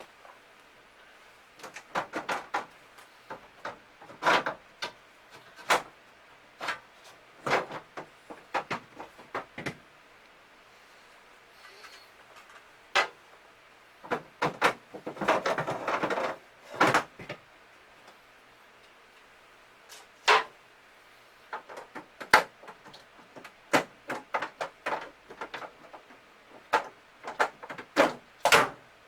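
Plastic interior panels of a refrigerator compartment being worked loose and pulled out by hand: scattered clicks, knocks and snaps, with a longer scraping rub about halfway through.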